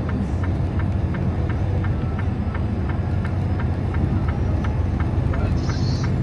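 Peterbilt 389 semi-truck engine running steadily while driving, a low hum with a quick regular ticking about four times a second over it. A short hiss comes just before the end.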